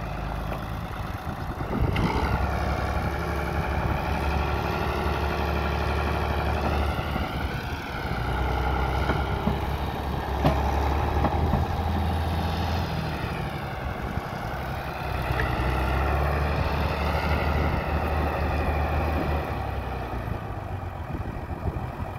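Farm tractor's diesel engine running hard under throttle as the tractor drives, its pitch rising and falling with load and dipping briefly twice.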